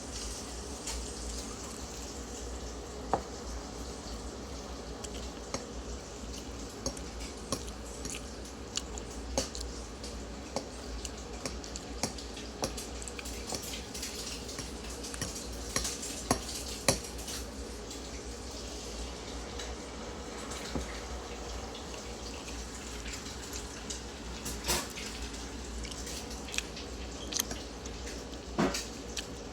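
Cutlery clinking and scraping on plates during a meal: scattered sharp clicks and taps at irregular intervals over a steady low background hum.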